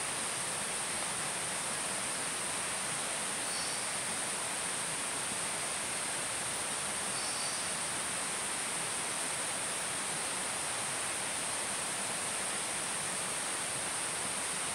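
Steady high-pitched insect drone over an even background hiss, with two faint short chirps about four and seven seconds in.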